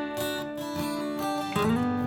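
Background music: a held melody note, then a sliding rise into a new note about one and a half seconds in.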